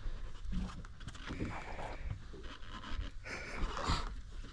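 Hard, heavy panting breaths of an angler straining to hold a big fish on a bent rod, a few loud breaths in turn.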